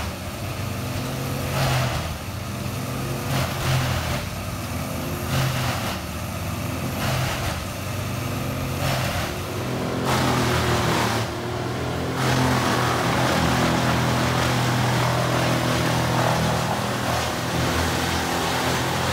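A wood chipper's engine runs steadily while it chips branches. In the first half a rush of chipping noise comes about every two seconds. About ten seconds in the sound changes to a denser, steady noise over the engine.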